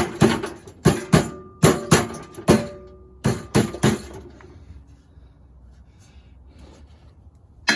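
About ten sharp knocks with a short metallic ring in the first four seconds: the leaf blower's fan impeller being struck to drive it onto its keyed shaft. Guitar music starts right at the end.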